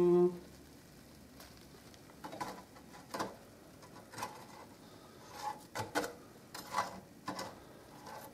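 Wire fry basket of an electric deep fryer being handled: a dozen or so light, irregular metallic clicks and rattles, over a faint hiss from the hot oil.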